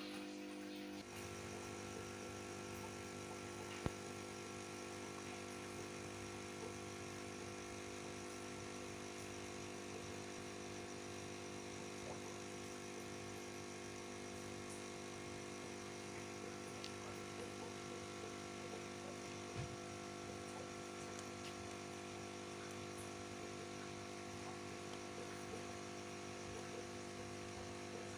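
A steady hum made of several fixed tones, unchanging throughout, with a single sharp click about four seconds in.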